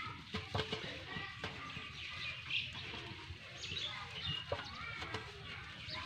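Leafy vines rustling as hands part and gather them, with birds chirping in the background.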